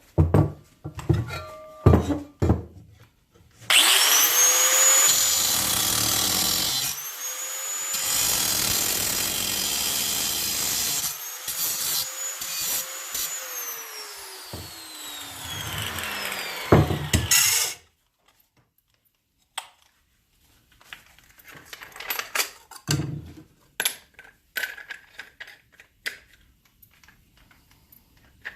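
Handheld grinder with a flap wheel, started three times and grinding down a steel nut to round it to the spacer's diameter; the motor whine rises as it spins up and falls away as it runs down, and it stops about 18 seconds in. A few knocks before it and light clicks of handling after.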